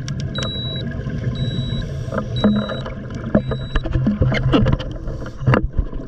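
Underwater scuba noise: a diver's exhaled bubbles crackling and gurgling around the camera, with irregular clicks. A high electronic beep sounds about once a second, each lasting about half a second, and stops a little under four seconds in.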